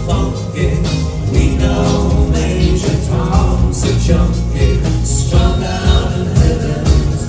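Live band music with several voices singing over it: drums, bass and keyboards playing steadily.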